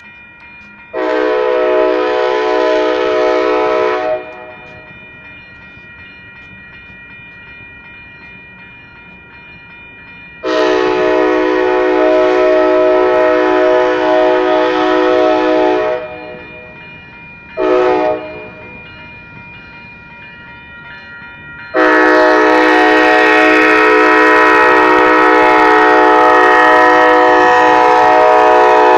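Union Pacific locomotive horn sounding the grade-crossing signal: a long blast, a second long blast, a short blast, then a final long blast held to the end. Throughout, the crossing's WCH Type 1 electronic bells ring steadily.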